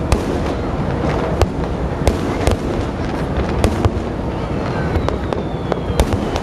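Fireworks display: aerial shells bursting in an irregular string of sharp bangs, about a dozen in six seconds, over a continuous low rumble of distant detonations.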